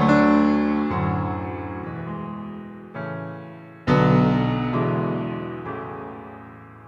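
Computer-sequenced solo piano cadenza, an artificial piano sound driven from an Atari running Notator/Creator. A full chord is struck at the start, a softer chord about three seconds in and another full chord about a second later, each left ringing and fading slowly.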